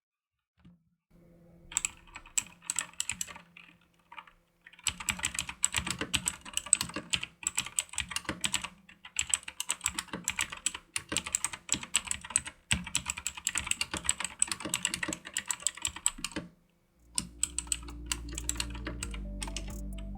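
Fast typing on a Leaven K620 mechanical keyboard with blue switches: rapid, dense keystroke clicks in runs, with two short pauses. A steady low background sound comes in near the end.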